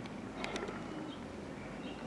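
Outdoor ambience with faint bird chirps, and a couple of sharp clicks about half a second in.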